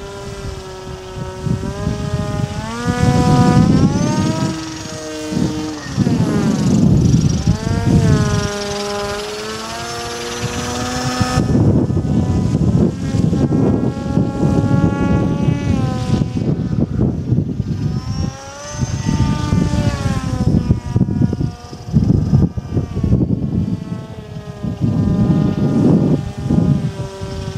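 RC model autogyro's motor and propeller droning in flight, the pitch rising and falling several times as the throttle is worked through loops and rolls.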